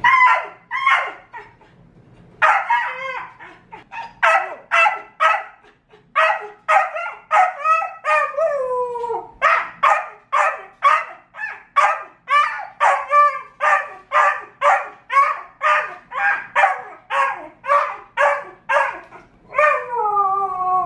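Alaskan Malamute puppy barking in a long run of short, high-pitched yips, about two a second, with a few longer yowls that fall in pitch, one around eight seconds in and one near the end.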